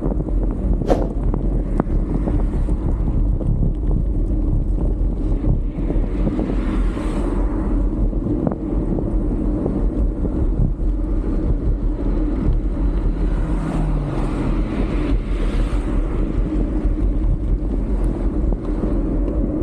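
Wind buffeting the microphone of a camera on a moving bicycle, a steady low rush of air at riding speed, with one brief sharp click about a second in.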